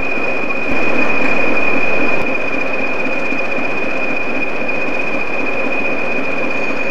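A pair of Class 20 diesel locomotives, English Electric engines running, hauling old LMS coaches slowly on a curve, with rumbling rail and engine noise and a steady high-pitched squeal. There is a short louder stretch about a second in.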